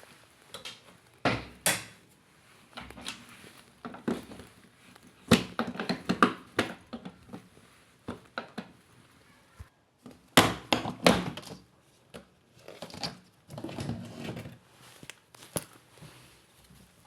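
Irregular knocks, clicks and clatter of hard objects being handled, with the loudest knocks about a second in, around five seconds in and about ten seconds in.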